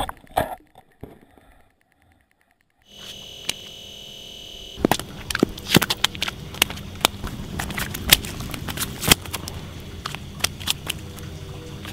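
A small panfish flopping on bare ice, its body slapping the ice in a run of sharp, irregular slaps from about five seconds in, over a steady low outdoor background.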